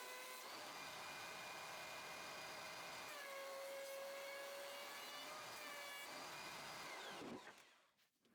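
Thickness planer running with a steady whine and hiss, the pitch shifting slightly a few times as boards are planed to 1.5 inch thickness, then switched off and winding down about seven seconds in.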